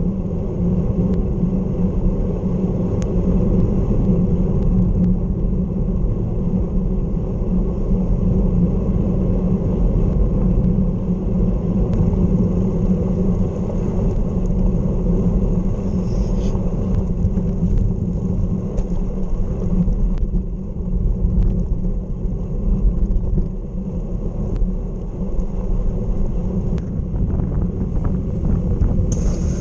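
Steady low rumble of wind buffeting the microphone of a camera on a moving bicycle at road speed, with a few faint clicks.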